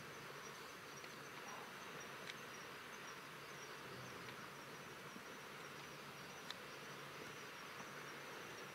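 Faint outdoor ambience with insects trilling in a high, even, pulsing tone over a soft hiss, and a couple of small ticks.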